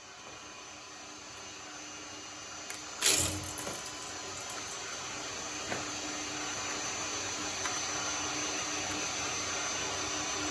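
Electric shredder motor running with a steady hum that slowly grows louder, with one loud crunch about three seconds in.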